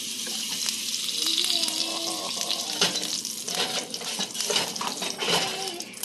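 Hot milky chai being scooped up with a ladle and poured back into the pot: a steady stream of splashing liquid.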